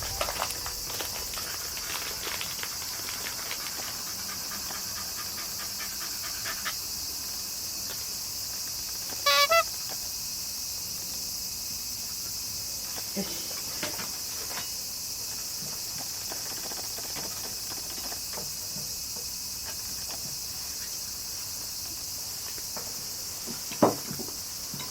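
A Shiba Inu gives one short, high whine about nine seconds in, over a steady high insect drone. Light clicking runs through the first few seconds, and there is a sharp knock near the end.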